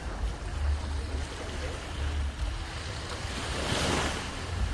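Surf washing on the shore under wind rumble on the microphone, with one wave breaking into a louder hiss about three and a half seconds in.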